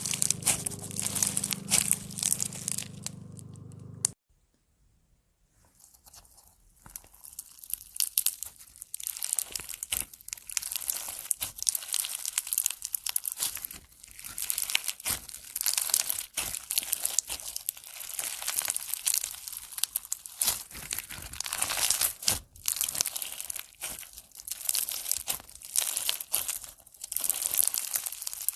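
Slime being squeezed and stretched by hand, making a dense run of crackling, crinkling pops. It cuts off abruptly about four seconds in, with a low hum behind it until then, falls near silent for a second or two, then the crackling builds back up and runs on.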